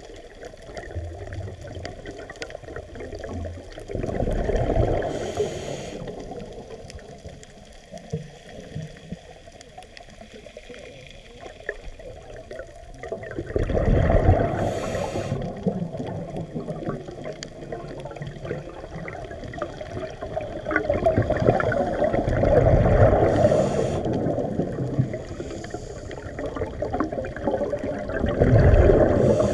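Scuba diver breathing through a regulator, heard through an underwater camera housing: four bubbling exhalations about eight seconds apart, over a steady underwater wash.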